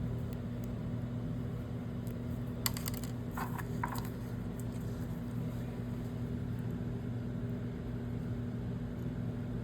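A steady low electrical-sounding hum, with a handful of light clicks and taps from small tools and parts being handled on the pump about three seconds in.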